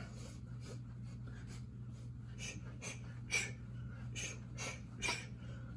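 A boxer's short, sharp exhales through the nose and mouth, timed with his punches, about one or two a second, over a steady low hum.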